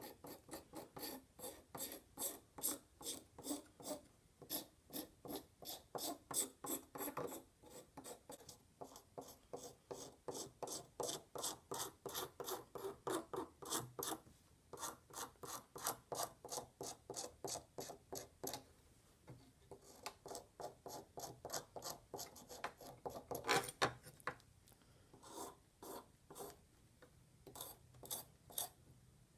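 Knife blade scraping old varnish off wooden knife handle scales, in quick, even strokes of about three a second, with one louder stroke about three-quarters through.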